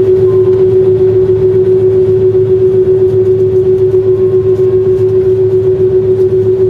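Steady drone inside a Boeing 767-300 airliner cabin on the ground: one constant mid-pitched hum over a low rumble, unchanging throughout.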